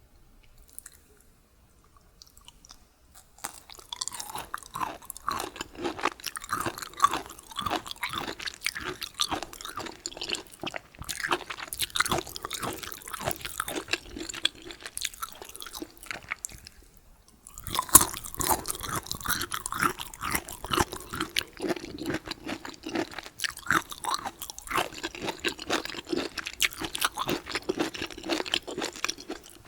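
Close-miked chewing of bamboo shoots and rice with tteokgalbi: crisp crunches among wet mouth sounds. The chewing starts about three and a half seconds in, breaks off briefly a little past halfway, then goes on.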